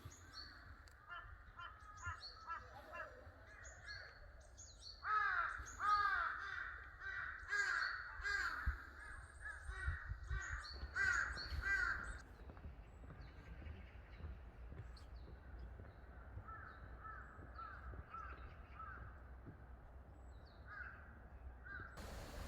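Crows cawing in runs of quick repeated calls, loudest from about five to twelve seconds in, with a fainter run of calls later.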